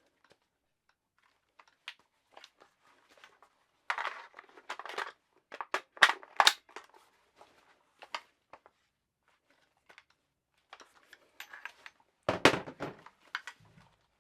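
Handling noise of a Soviet Arms AKS-74U-pattern pistol: scattered light metallic clicks and rattles, a quick run of sharper clacks about four to six seconds in, and one heavier knock about twelve seconds in.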